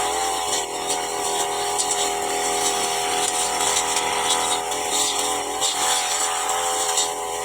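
Petrol brush cutter engine running steadily at high revs with a constant whine while cutting through grass, with repeated brief swishing hits from the cutting head.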